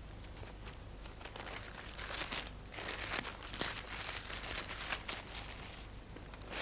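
Soft, irregular footsteps and rustling, densest in the middle, over a steady low hum.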